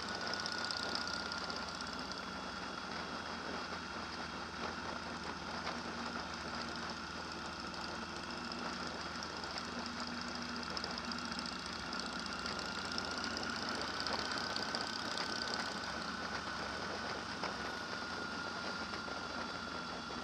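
An engine running steadily, with a high whine that wavers slightly in pitch.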